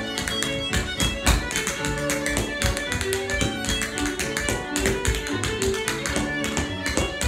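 Step-dancing shoes tapping out quick, dense rhythms on a hard floor, over a fiddle tune.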